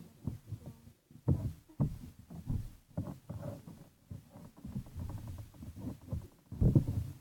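Hands squishing and poking slime: irregular soft squelches, pops and thumps, with a louder squelch near the end.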